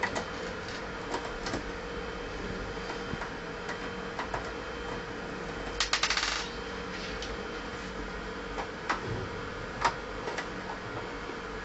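Screws being undone from a desktop computer case with a screwdriver: scattered small metallic clicks and ticks, with a quick rattle of clicks about six seconds in, over a steady hum.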